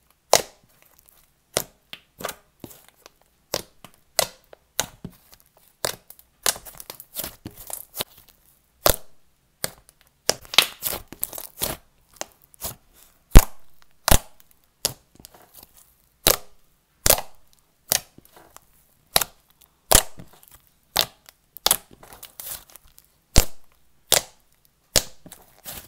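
Thick, doughy cloud cream slime squished and stretched by hand, giving off irregular sharp pops and crackles, roughly one to three a second, as air pockets in it burst.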